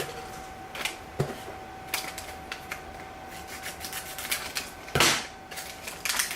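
Scattered clicks and crinkles of small blind-bag packages and plastic pin boxes being handled by hand, with one louder rustle about five seconds in.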